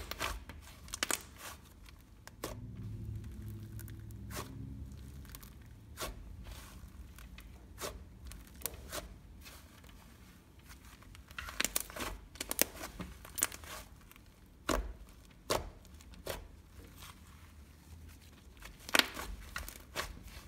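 Butter slime being pressed, stretched and folded by hand, giving scattered small clicks and crackles with sharper pops right at the start and about 19 seconds in.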